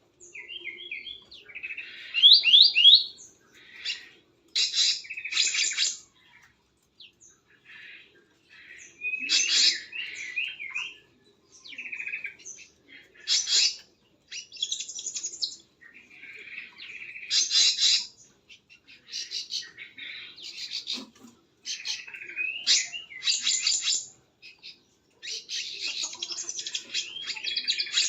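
Small birds chirping and calling in repeated bursts of high chips and fast trills, separated by short pauses.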